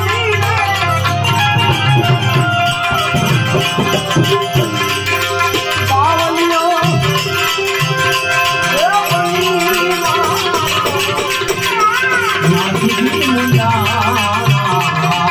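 Santvani devotional folk music: a singer's ornamented, wavering melody over steady sustained instrumental tones, with tabla and a fast, even jingling rattle keeping the rhythm.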